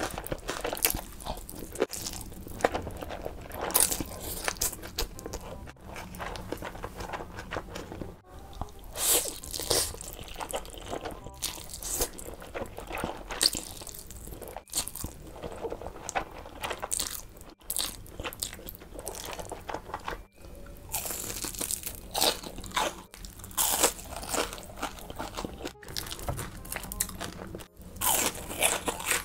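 Close-miked eating: crisp, irregular crunching bites and chewing of crunchy fried food, between mouthfuls of spicy stir-fried instant noodles being slurped.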